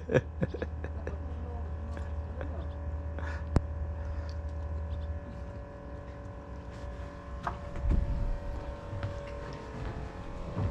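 A steady engine hum with a low rumble underneath that drops away about five seconds in, with a few light clicks near the start.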